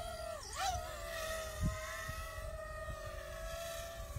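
DJI FPV drone's propellers humming in flight, a steady whine whose pitch dips and comes back up in the first second as it adjusts after descending, then holds nearly level.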